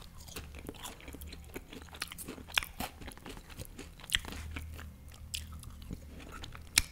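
Close-miked chewing of a mouthful of fried potatoes: wet mouth clicks with several sharp crunches, the loudest one near the end.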